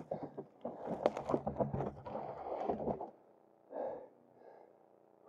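A person breathing hard, with brush and twigs rustling and snapping as they move through the undergrowth; it drops away after about three seconds, leaving one more short breath near four seconds.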